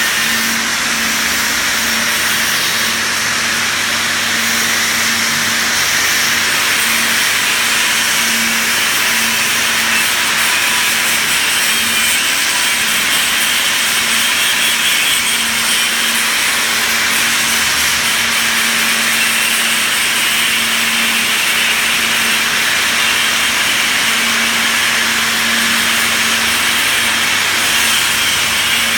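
Electric arc welding on a pipe: the arc gives a continuous crackling hiss with a faint low hum under it.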